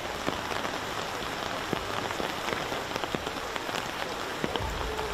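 Heavy rain falling steadily, a dense hiss with many small sharp drop impacts.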